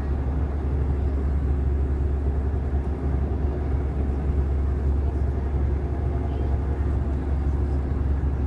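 Passenger train running, heard from inside the carriage: a steady low rumble without letting up.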